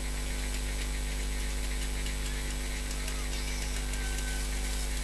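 Steady low electrical hum with a constant buzz and hiss, unchanging throughout, with no drum strikes or voices standing out.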